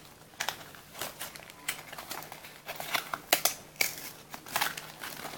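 Toy packaging being opened and handled by hand: irregular crinkling and crackling of the wrapping.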